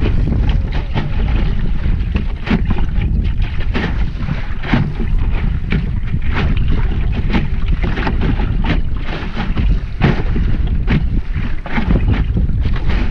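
Wind rumbling on the microphone of a small sailing dinghy under way in choppy water, with irregular slaps and splashes of waves against the hull.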